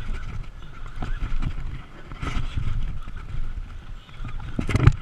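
Wind buffeting a chest- or head-mounted action camera's microphone on a boat at sea, with water slapping the hull, as a conventional fishing reel is cranked. There is a low rumble throughout, with a knock about two seconds in and a louder one near the end.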